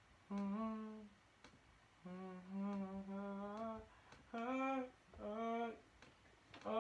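A person humming a melody in five short phrases of held notes with brief gaps between them, the pitch stepping between a few notes. Faint clicks sound here and there.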